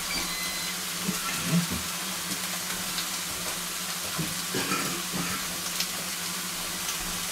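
Steady sizzling hiss of food frying, over a low steady hum, with a few faint clicks.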